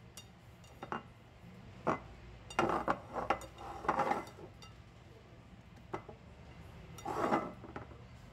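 Scattered light clinks and knocks of a baking dish and kitchenware being handled, some single and some in short clusters, over a steady low hum.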